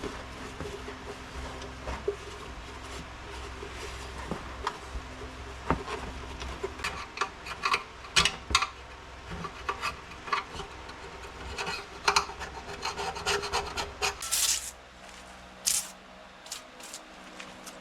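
Hand scraping and rubbing on metal engine parts: irregular strokes with scattered clicks and knocks, over a steady low hum that fades out about three-quarters of the way through.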